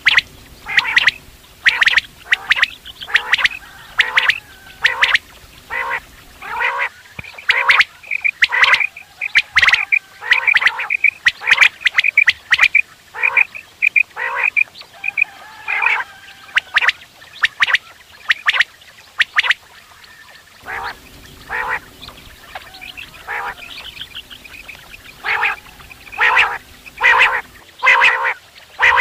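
Quail calling over and over in short, sharp notes, about two a second, with a brief lull around twenty seconds in.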